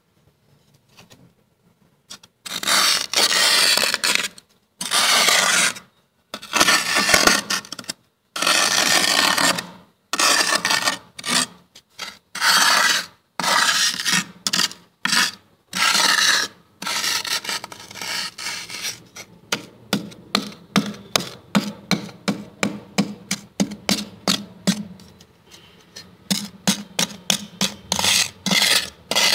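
Thick freezer frost being scraped with fingers. After about two seconds of quiet come long scraping strokes of about a second each, then shorter ones that quicken to two or three a second in the second half.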